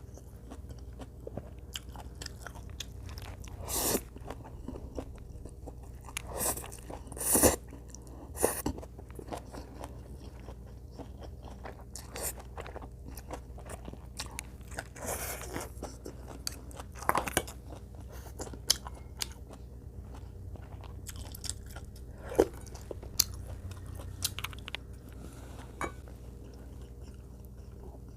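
Close-miked chewing and crunching of food in an eating show, with scattered short clicks and a few louder bites.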